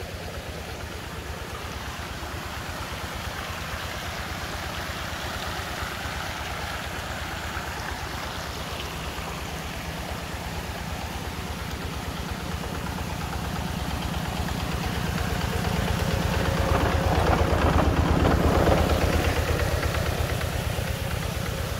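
Shrimp-pond paddlewheel aerators switched on and running: a steady motor drone with a fast low pulse, over the splash and churn of water. It grows louder in the last third, then eases slightly.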